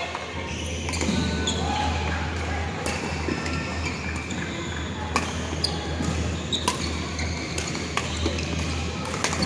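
Badminton rackets hitting shuttlecocks on several courts in a large hall: sharp, irregular smacks, with short squeaks of shoes on the court floor, a murmur of voices and a steady low hum.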